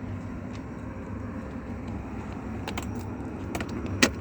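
A few small metallic clicks and taps as the parts of a car door lock cylinder are fitted back together, with one sharper click near the end, over a steady low rumble.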